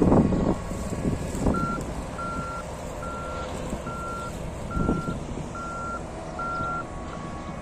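A vehicle's reversing alarm beeping seven times on one steady high tone, a little under one beep a second. Wind buffets the microphone at the start and again about five seconds in.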